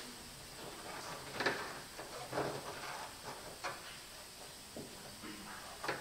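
Scattered light knocks, clicks and rustling from hands handling things under a car's raised hood, the sharpest knock about a second and a half in.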